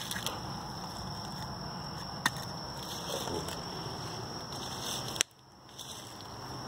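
Footsteps through leaf litter and undergrowth over a steady background noise, with two sharp clicks, one about two seconds in and one about five seconds in, the second followed by a brief dip in level.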